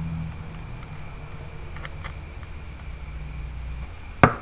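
Carburetor parts being handled and fitted together: a couple of faint clicks about two seconds in, then one sharp clack near the end, over a steady low hum.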